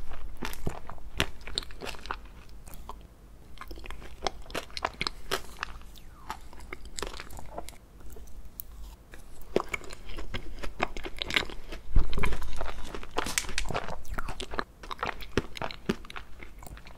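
Close-miked eating of ice cream cake: a metal fork cutting into the frozen cake and mouthfuls being bitten and chewed. The chewing comes with many short, sharp clicks and is loudest about twelve seconds in.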